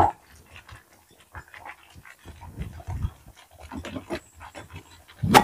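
Thick coconut-milk rice porridge bubbling and plopping in a saucepan as lumps of palm sugar melt into it, in small irregular pops. A sharp knock at the start and a louder clatter near the end.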